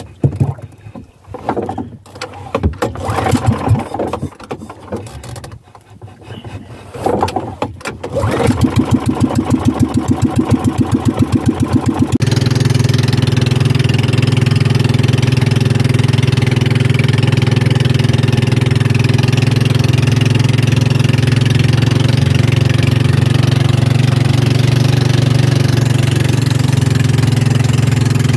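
Irregular knocks and clatter, then an outrigger fishing boat's engine catches about eight seconds in, running with an even puttering beat. At about twelve seconds it changes to a steady, louder run as the boat gets under way.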